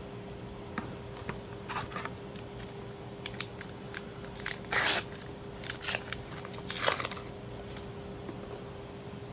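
Foil trading-card booster pack wrapper crinkling and tearing open in short rustling bursts, the loudest about halfway through, mixed with light clicks of cards being handled.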